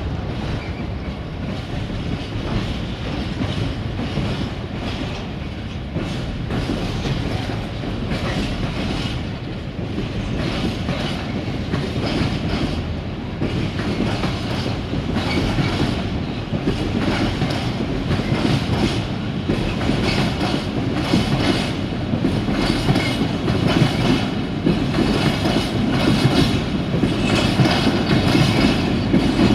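Empty freight flat wagons rolling past, their steel wheels clattering over the rail joints in a steady clickety-clack that grows a little louder toward the end.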